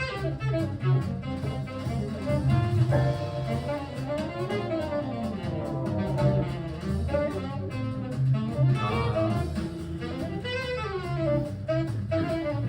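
Recorded small-group hard bop jazz playing back: a saxophone lead line over walking double bass and drums played with brushes throughout.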